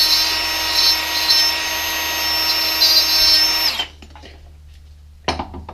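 Angle grinder running at full speed, its wheel shaving the cut end of a PTFE fuel hose flat, with a steady high whine that cuts off about four seconds in. A short knock follows near the end.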